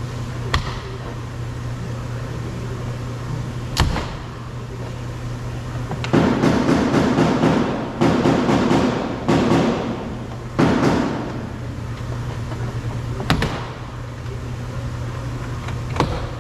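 Plastic door trim panel being pried and pulled off a car door: several sharp pops of its retaining clips letting go, and a few seconds of plastic rattling and scraping in the middle, over a steady low hum.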